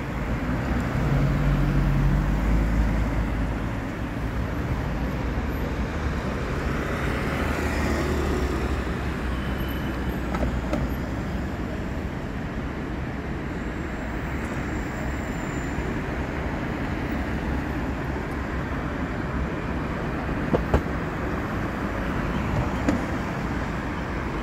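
City street traffic: cars driving past on the road, with a louder vehicle's low engine hum over the first few seconds. A few short sharp clicks come near the end.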